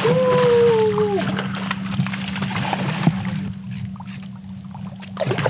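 Hooked Spanish mackerel splashing at the surface beside the boat over the steady hum of the boat's engine, with a long drawn-out shout in the first second that falls away at its end, then a few knocks against the hull.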